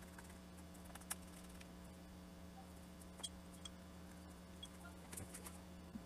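Near silence with a low hum and a few faint small clicks and taps from a small screwdriver being worked on the laptop's bottom-case screws.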